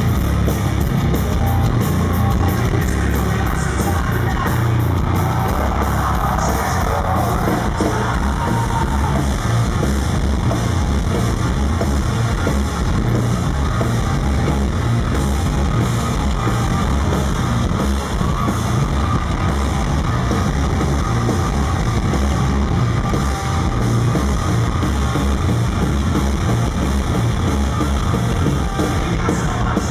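A hard rock band playing live and loud, with bass guitar, electric guitar and drums and shouted vocals, recorded from the audience.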